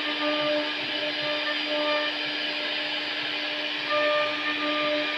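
CNC router spindle running with a steady whine over a hiss while it carves a design. A higher tone comes and goes every second or so as the bit works through the cut.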